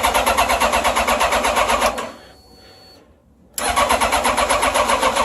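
Yamaha FJR1300's starter motor cranking the engine in a fast, even rhythm. It stops about two seconds in and starts cranking again about a second and a half later, and the engine never catches. This is the hard-starting fault that the owner puts down to a bad starter.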